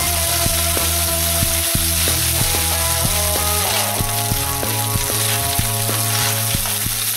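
Rice frying and sizzling in a hot pan, stirred with a wooden spoon, over background music with a steady beat.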